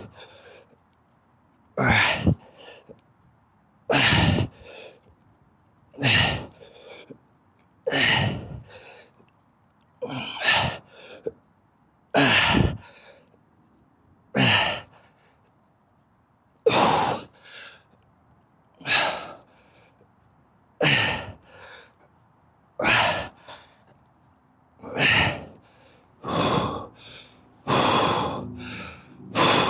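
A man's hard breaths out under strain, one short, forceful exhale about every two seconds in time with each walking-lunge rep while carrying a pair of 60 lb dumbbells. Near the end the breaths grow longer and turn into short grunts.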